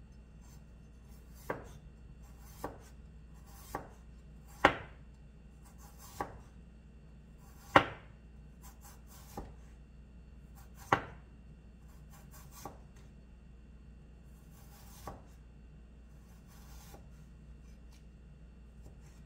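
Large kitchen knife slicing through fresh ginger root onto a wooden cutting board: about ten single knocks of the blade on the board, one every second or two, growing fainter toward the end.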